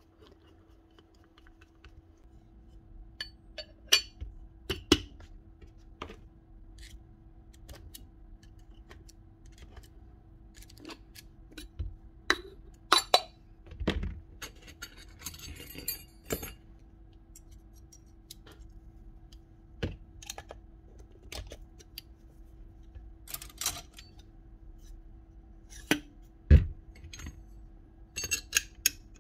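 Scattered clinks, taps and knocks of hand tools and small metal parts being handled while a Paslode nail gun is put back together, over a faint steady hum. The loudest is a single knock near the end.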